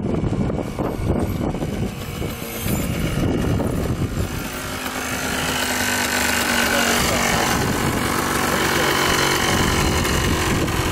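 A Yamaha sport ATV's engine idling steadily close by from about four seconds in. Before that, a gusty rumble of wind on the microphone.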